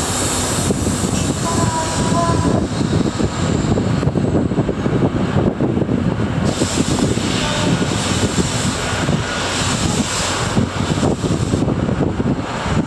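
Train rolling slowly past the platform, heard from an open passenger-coach window: a steady rumble of wheels and running gear full of small irregular knocks. A hiss rises over it from about halfway through for several seconds.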